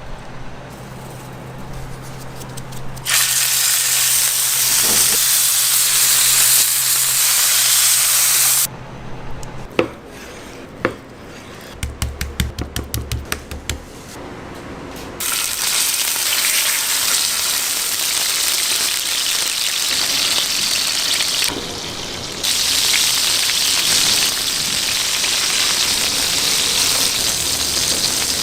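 Steak sizzling in hot butter, a loud even hiss in long stretches. Around ten seconds in the sizzle stops for a few seconds of scattered clicks and a quick run of knocks before it starts again.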